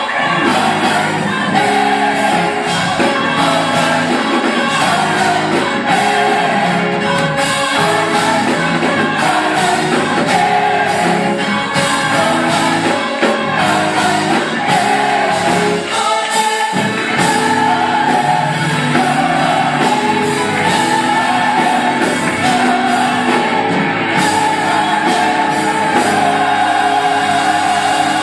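Gospel choir singing with a full backing band, at steady loudness throughout.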